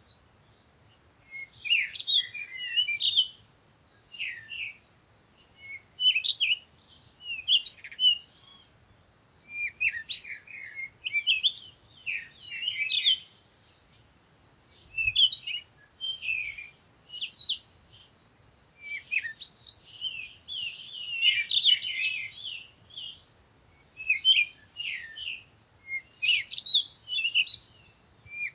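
Several songbirds chirping and singing in quick bursts of short high notes and whistled glides, coming in bouts every couple of seconds with brief pauses between.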